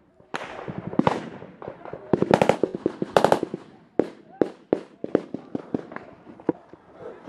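Small-arms gunfire in a firefight: a few single shots, two short rapid bursts about two and three seconds in, then a run of shots about three a second.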